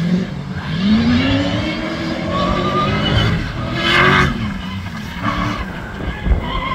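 Off-road competition car engine under hard acceleration, its pitch climbing for about three seconds and then falling away after about four seconds, with a short burst of noise at that point. Tyres scrabble over dry grass and dirt.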